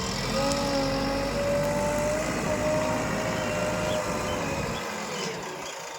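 JCB earthmover's diesel engine running under load, with a whine that rises a little and then falls, easing off near the end.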